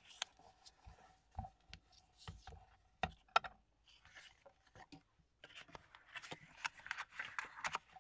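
Heavy kraft card from a hanging file folder being folded by hand: the card rustles and crinkles as flaps are bent over and pressed down, with a few light knocks against the cutting mat. The rubbing and rustling grow denser in the last couple of seconds as the folds are smoothed flat.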